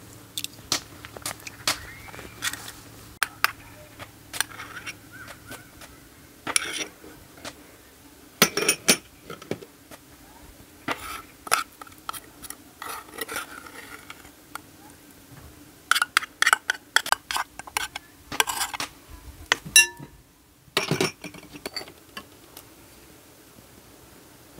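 Kitchenware clinking and knocking, with irregular sharp strikes of utensils against dishes and pots, some in quick runs, over a faint steady hum.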